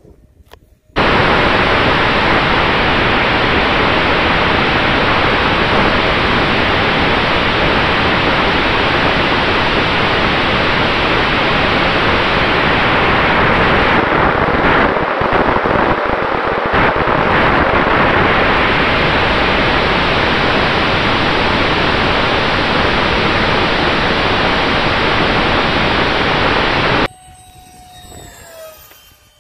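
Onboard-camera sound from an E-flite A-10 64 mm electric-ducted-fan RC jet in flight: a loud, steady rush of wind and fan noise with a faint steady tone running through it, cutting off suddenly near the end. Then, much fainter, the jet's fan whine falls in pitch as it flies past.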